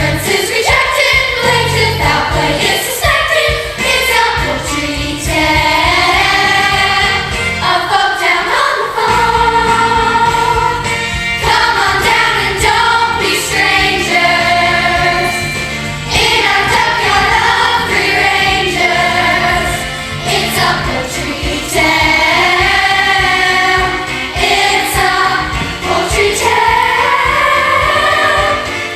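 A youth cast singing a musical-theatre number in chorus, with instrumental accompaniment.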